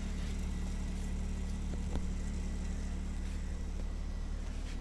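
A steady low mechanical hum, like a motor or engine running nearby, with one small click about two seconds in.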